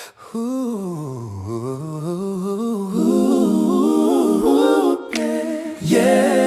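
Wordless a cappella vocal harmony: a voice humming a gliding melody, joined by several voices from about three seconds in, opening a soul vocal-group ballad.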